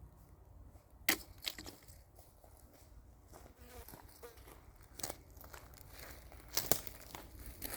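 Flies buzzing around, with scattered crunches and crackles of footsteps on the dry forest floor. The sharpest crunch comes about a second in, and more follow near the end.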